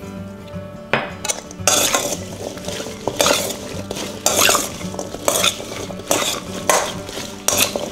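Cut raw potato fries being stirred and tossed with oil and salt in a metal mixing bowl, a spoon scraping against the metal. The strokes come in a quick, irregular run starting about a second in.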